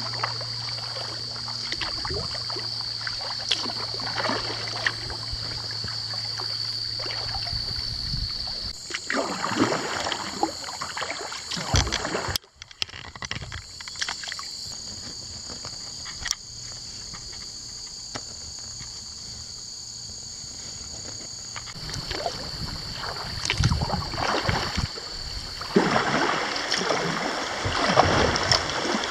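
Kayak paddle strokes dipping and splashing in river water at a steady pace, over a steady high insect buzz. From about two-thirds of the way through, rushing water grows louder as the kayak runs through a shallow riffle.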